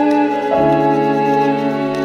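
Instrumental film score: sustained, slow chords that shift to a new chord about half a second in.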